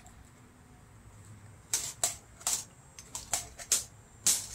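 Metal slotted spoon clinking against the side of a stainless steel pot while stirring noodle soup: about eight sharp clinks in the last three seconds, after a quiet first second and a half.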